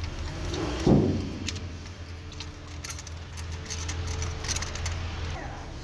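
Car engine running with a steady low hum, with a sharp thump about a second in and light metallic clicking and jingling in the second half.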